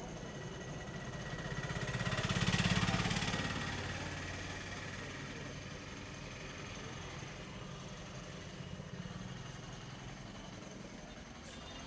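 A motor vehicle drives past on the street, its engine sound swelling to a peak about two to three seconds in and then fading away.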